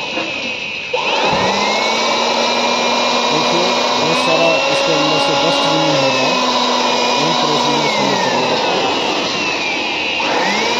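Handheld electric air blower switched on about a second in, its motor whining up to speed and running steadily as it blows dust out of a drilled hole in concrete, cleaning it for a chemical rebar anchor. Near the end the motor winds down and is switched on again, whining back up to speed.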